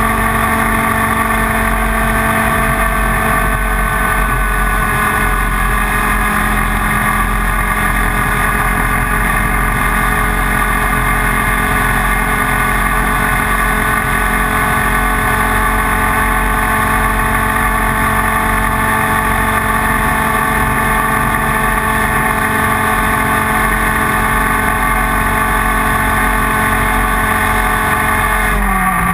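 IAME Leopard 125cc two-stroke kart engine running hard at a nearly steady high pitch; in the last second the pitch drops sharply.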